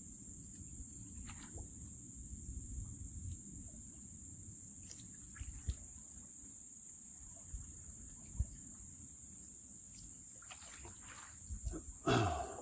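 Light rain falling around a canoe: scattered faint drop ticks over a steady low rumble. Near the end comes a brief louder sound that falls in pitch.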